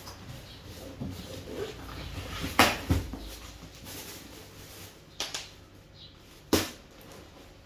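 Sharp knocks and taps from objects being handled during an unboxing: two quick knocks about two and a half seconds in, another pair just after five seconds, and a single louder one near the end, with quieter handling noise between.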